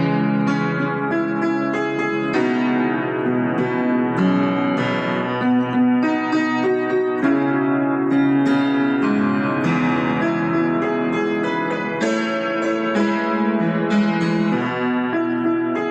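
Instrumental music on piano, a steady flow of sustained chords and notes.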